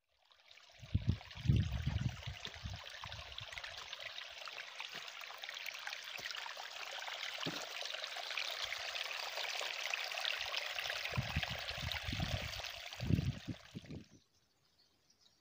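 Small stream of water trickling and running among rocks, a steady hiss of flow, with a few low bumps on the microphone near the start and again near the end. It cuts off suddenly about a second before the end.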